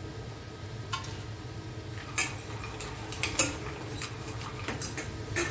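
Long metal tongs clinking and scraping against a stainless steel saucepan as seafood is turned in it: a single click about a second in, then a run of clinks through the last three seconds, over a steady low hum.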